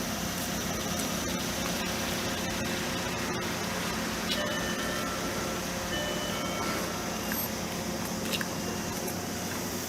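Street ambience: a steady hum of passing traffic, with a few scattered clicks and some brief faint tones midway through.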